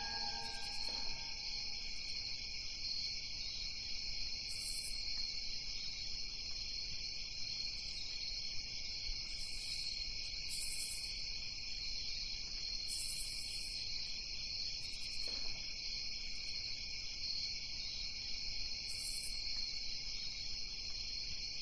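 Crickets chirping in a steady night-time chorus, with short higher-pitched trills now and then.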